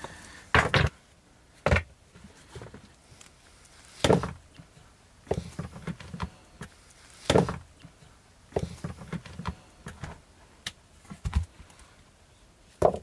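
Irregular knocks and thuds of objects being handled: about half a dozen sharp strikes a few seconds apart, with quieter clusters of small knocks and rustling between them.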